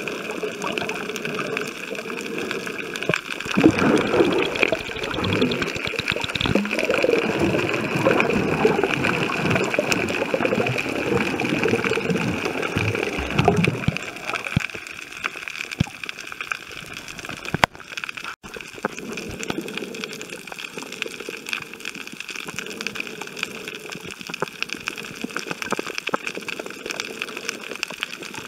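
Water gurgling and sloshing around an underwater camera while snorkeling. It is busiest and loudest for the first half, then settles to a quieter steady hiss with scattered faint clicks.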